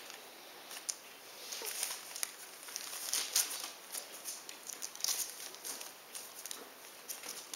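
Young puppies scrabbling about on a newspaper-lined floor: irregular rustling and crinkling of the paper under their paws.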